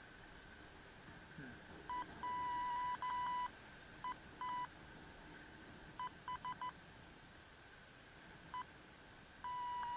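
FrSky Taranis transmitter's audio variometer beeping: one steady-pitched tone broken into short and long beeps at uneven intervals from about two seconds in, with a long tone near the end. It is reporting the glider's climb and sink, which the pilot reads as nothing but sink.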